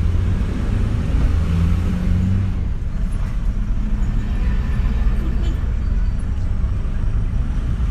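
Motor vehicle engine running with road noise, a steady low rumble; an engine hum is heard for the first couple of seconds.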